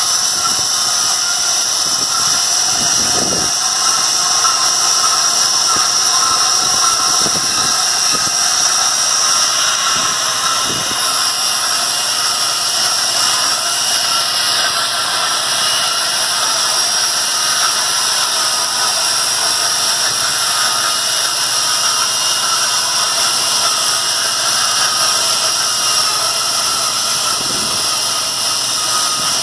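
Steady, high-pitched mechanical whine and hiss of machinery running without a break, with a few faint thumps.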